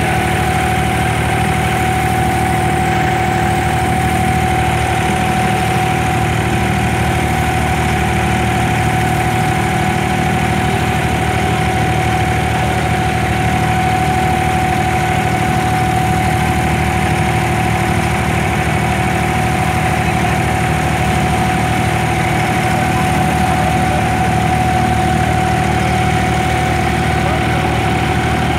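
Abra water taxi's inboard diesel engine running steadily, heard from on board the boat, with a steady high hum over the engine's low drone.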